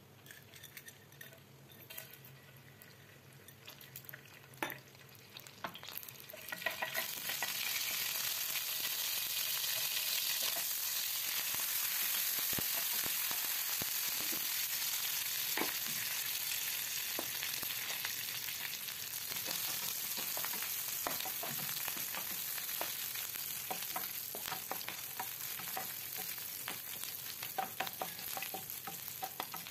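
Hot oil in a pan, quiet with a few small pops at first, then sizzling suddenly and steadily from about a quarter of the way in as urad dal, seeds and curry leaves fry in it, with scattered crackles throughout.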